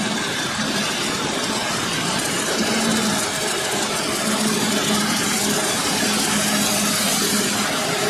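Claas Jaguar 970 self-propelled forage harvester chopping maize, its engine and chopper running steadily under load, with a Fendt tractor and trailer running alongside. It is a dense, continuous machine noise with a low hum that comes and goes.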